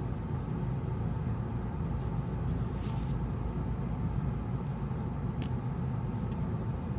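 Steady low background rumble, with a couple of faint light clicks from small phone parts being handled.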